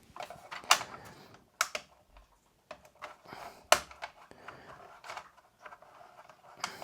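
Irregular sharp clicks and light knocks of a plastic Bambu Lab AMS 2 Pro housing being handled and turned over on a desk, three of the clicks sharper than the rest.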